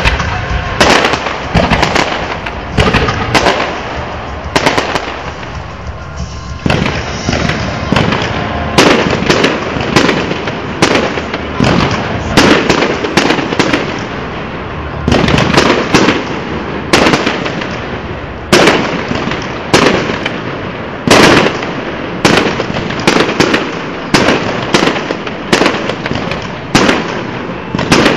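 Fireworks display: aerial shells bursting in sharp, loud bangs in quick, irregular succession, with crackling noise between the reports.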